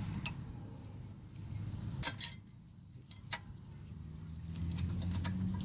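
New steel brake pad hardware clips clinking and clicking as they are handled and snapped into a caliper bracket: a sharp click near the start, two close together about two seconds in, and another just after three seconds.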